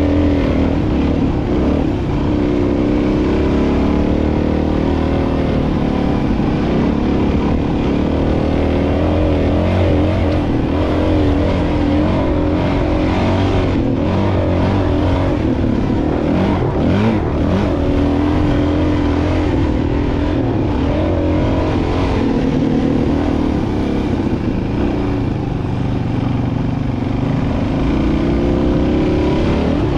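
Dual-sport motorcycle engine running under throttle on a rough trail, its pitch rising and falling as the throttle is worked. A run of knocks and clatter comes about halfway through.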